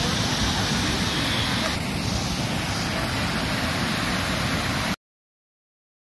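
Water pouring over a weir at high flow, a loud steady rush of white water; the sound cuts off suddenly to dead silence about five seconds in.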